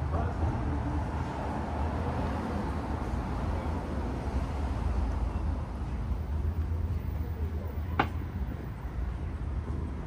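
Downtown street ambience: a steady low traffic rumble with indistinct voices of passers-by, and a single sharp click about eight seconds in.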